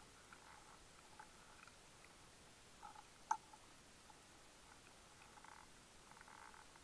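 Near silence underwater, with faint scattered clicks and soft hissing and one sharp click about halfway through.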